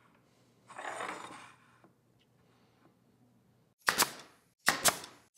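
A nail gun firing three times near the end, sharp loud shots as brads tack the MDF face onto the jig's brackets, the last two close together. A short rustle about a second in.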